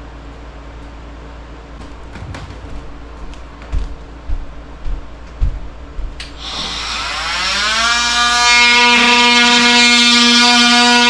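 A few low thumps, then a small electric power tool's motor spinning up, rising in pitch over about two seconds, and running at a steady, loud high whine.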